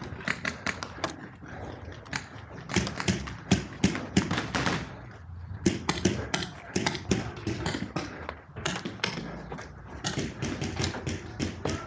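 Paintball markers firing: quick irregular pops in bursts, several shots a second at the busiest stretches.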